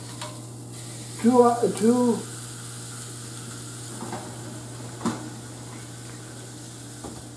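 Rib eye steak sizzling steadily in a preheated pan under the broiler as it is laid in with tongs. The sizzle stops short near the end.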